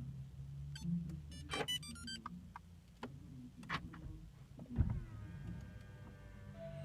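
Audi A4 (8K) engine idling after a remote start, with clicks and a quick series of short electronic beeps, then a heavy thump about five seconds in followed by a steady chime-like tone.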